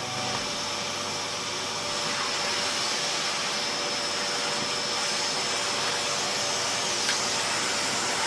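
Prototype Miele S7000 upright vacuum cleaner running steadily: a high motor whine over the rush of air, getting a little louder about two seconds in.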